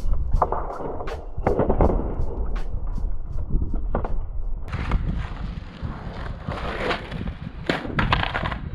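Skateboard on asphalt: the board is popped and flipped, the wheels come down and roll on the rough tarmac, and the board clatters onto the ground again near the end.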